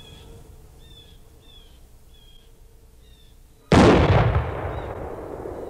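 An 1853 Springfield percussion musket loaded with powder and ball is fired once, about two-thirds of the way in. It makes a single sharp, loud shot that fires on the first try, followed by a long echoing decay.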